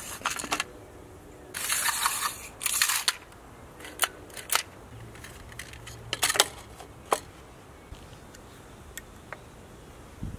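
Handling noise from a chainsaw repair: sharp clicks and two short rattling scrapes of a screwdriver and the plastic recoil starter cover being handled and fitted back onto a Stihl 090 chainsaw, then scattered single clicks.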